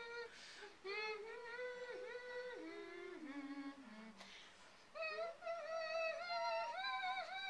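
A woman humming a national anthem with her mouth closed, in held, sliding notes. The tune steps down from a mid pitch to a low one about two to four seconds in, then climbs to a higher phrase near the end.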